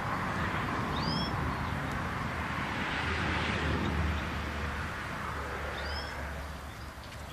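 Steady outdoor hiss with a low rumble, and a bird giving a short, high chirp twice, about a second in and again about six seconds in.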